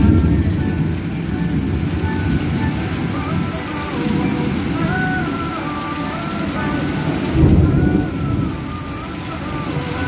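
Heavy rain pouring down in a thunderstorm, a dense steady hiss and patter. A louder low rumble of thunder swells up about seven and a half seconds in.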